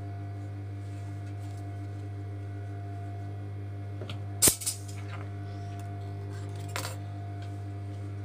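Scissors snipping the centre notch in the fabric: one sharp metallic snip about halfway through and a fainter click a couple of seconds later, over a steady low electrical hum.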